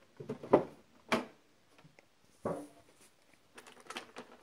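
The lid of a metal tin is worked off, with a few separate knocks and scrapes. Near the end come light clicking and rustling as plastic figures in a plastic tray are handled.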